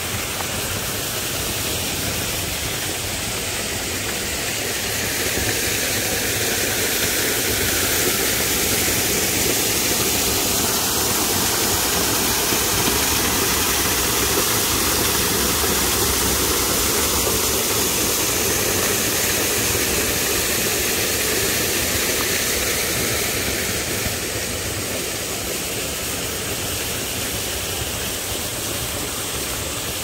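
Rushing water of a mountain stream, with a strong gush of water pouring over rocks into a pool; the steady rush grows louder from about five seconds in and eases off again after about twenty seconds.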